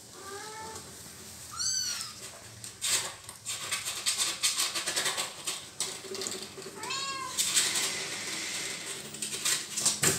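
Kitten meowing for help three times in high, arching cries, near the start, about two seconds in and about seven seconds in, while the mother cat bites it. Between the cries come crackly rustling and scraping from the dry hay and cardboard of the box as the cats scramble about.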